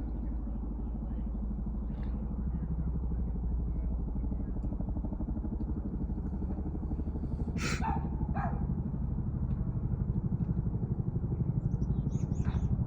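Helicopter rotor chop, a fast steady beat that grows louder toward the end. Two short sharp cries break in about eight seconds in, and a few more near the end.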